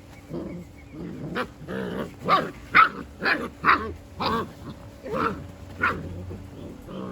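Goldendoodle puppies barking in play: a quick run of about nine short, high barks starting about a second in.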